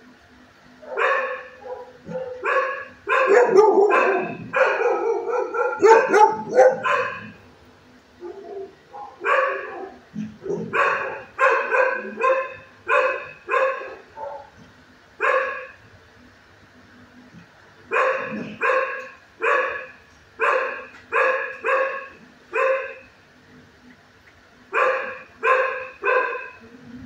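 Dog barking in runs of loud, sharp barks, a dense bout first, then several shorter runs separated by pauses of a second or two.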